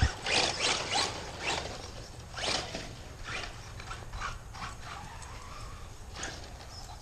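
Radio-controlled truck running on dirt: a faint motor whine with irregular scraping rattles, densest in the first three seconds.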